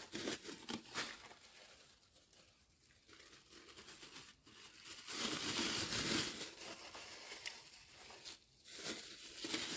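Thin plastic food bags crinkling and rustling as they are handled and filled with raw meat, quieter at first and louder from about halfway through.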